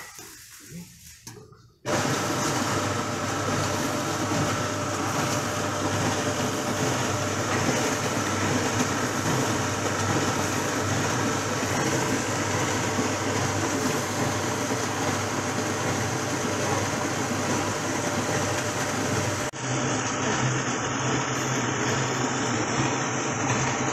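Electric motor of a two-tub es puter ice cream churning machine switching on about two seconds in and running steadily. Near the end the sound changes abruptly and turns duller.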